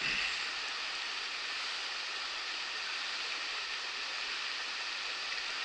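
Steady rush of a shallow, rocky river riffle running over stones.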